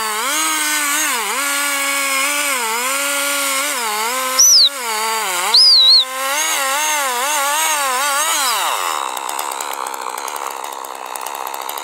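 Large two-stroke chainsaw cutting into a big log, its engine pitch dipping and recovering again and again as the chain bites into the wood. Two brief, very loud, high-pitched screeches come about four and a half and six seconds in. Near the end the engine pitch falls away and the sound turns to a rougher, noisier rattle.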